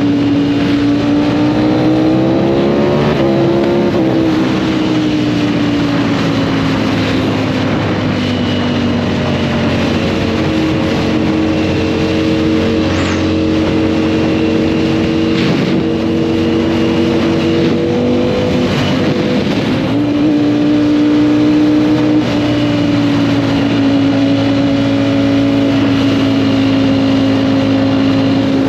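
Motorcycle engine running at steady cruising revs. Its pitch climbs briefly about three seconds in, then eases down, and it shifts up and down a few more times with throttle and gear changes.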